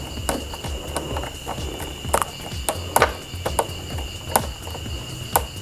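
Irregular small clicks and scrapes of fingers turning the metal thumbscrews of a VGA cable plug into a monitor's VGA port, over a faint steady high whine.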